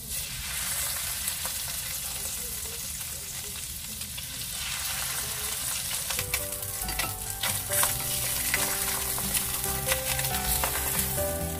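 Fish fillets sizzling skin-side down in hot olive oil and butter in a stainless steel frying pan. From about halfway through, a wooden spatula clicks and scrapes against the pan.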